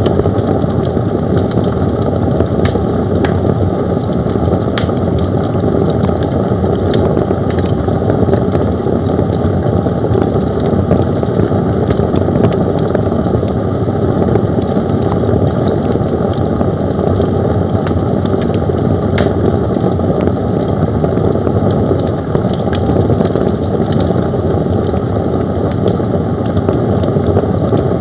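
Fire burning: a loud, steady roar with scattered sharp crackles.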